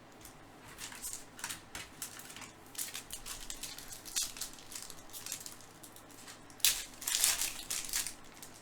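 Baseball trading cards being handled and slid against one another as they are flipped through: a run of short, dry swishes and rustles, with a louder burst of rustling a little before the end.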